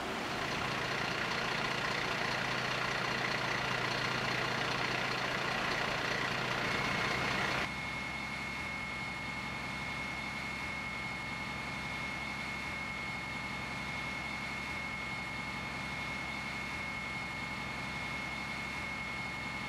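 Steady running machinery with a low hum. About eight seconds in it cuts off abruptly to a quieter steady noise carrying a thin, high, even whine.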